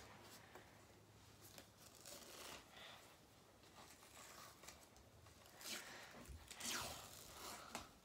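Hockey tape peeling off its roll as it is wrapped around a stick's knob: faint, intermittent rasping strips, a few louder ones near the end.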